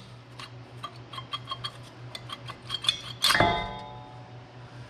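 Steel brake caliper and brake pad clicking and clinking against each other as the pad is worked out of the caliper, with a louder ringing metallic clank about three seconds in.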